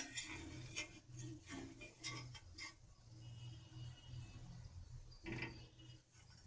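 Metal spatula scraping and clicking against a dry, unoiled tava as vadas are turned, a quick run of short scrapes in the first three seconds and another about five seconds in, over a low steady hum.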